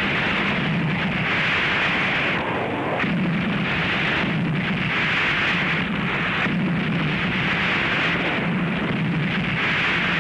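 Artillery bombardment: dense, overlapping shell fire and explosions with no pauses, swelling in waves every second or two.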